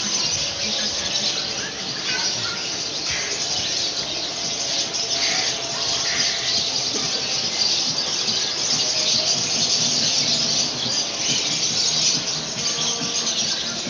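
Steady, high-pitched din of many caged birds chirping, squealing and squawking together.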